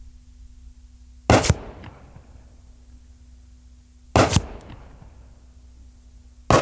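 Three 12-gauge shotgun slugs hitting muddy earth, about every two and a half seconds. Each is heard as two sharp reports a fraction of a second apart, with a short echo after.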